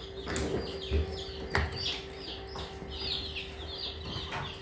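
A brooder full of young Brahma chicks peeping: rapid, high, downward-sliding cheeps, several a second, over a steady low hum.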